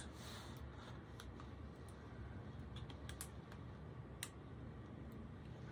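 Faint handling sounds of a hand moving over a plastic-covered diamond painting canvas: a few sparse light clicks and soft rustles over a low steady room hum. The sharpest click comes a little past four seconds in.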